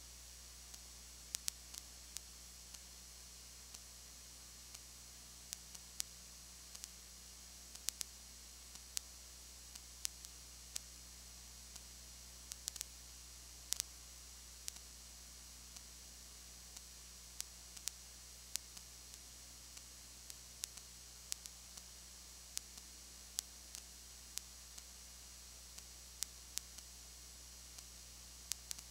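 Steady low electrical hum and high hiss with scattered sharp clicks and crackles, about one or two a second at irregular intervals: the noise floor of the recording, with no game or crowd sound.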